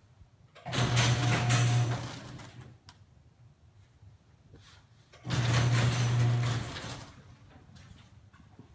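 Garage door opener motor humming and the door rattling in two short runs of about a second and a half each, stopping abruptly both times: the door starting and then halting, the fault it shows at night.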